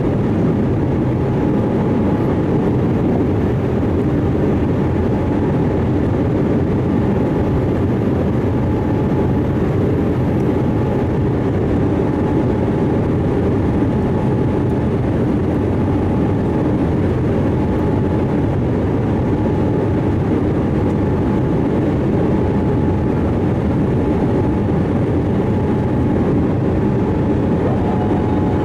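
Steady jet noise of a Boeing 787-8 airliner: a constant low rush with a faint steady whine above it, unchanging throughout.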